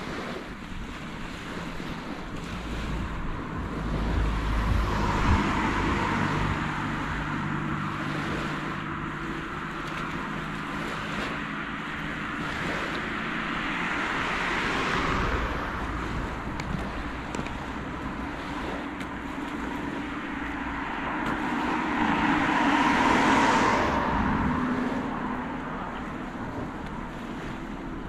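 Small waves washing onto a sandy beach, mixed with vehicles going by. The sound swells and fades three times.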